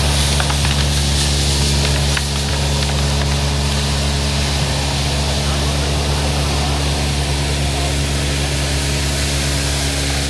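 Guzzcavator vacuum excavator running steadily, its engine and vacuum blower making a constant low drone with an airy hiss above it. A few faint clicks come in the first few seconds.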